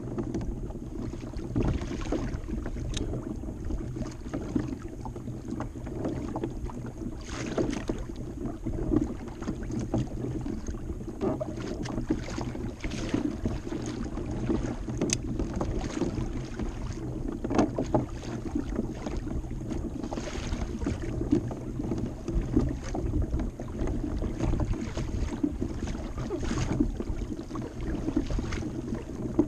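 Water sloshing and slapping against the hull of a Hobie pedal-drive fishing kayak as it moves through light chop, over a steady low hum, with frequent small splashes.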